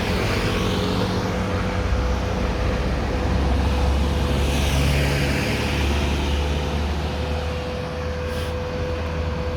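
Steady electronic-motor whine from a handheld camera gimbal, the noise the uploader apologises for. Underneath is street traffic rumble that swells in the middle as a vehicle goes by.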